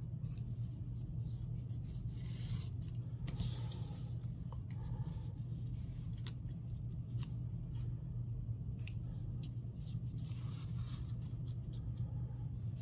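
Small scissors snipping and trimming stabilizer backing away from a zipper in an embroidery hoop: scattered short snips and crisp rustles of the backing, over a steady low hum.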